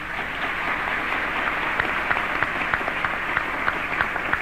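Audience applauding: many hands clapping in a dense patter that swells at the start and then holds steady.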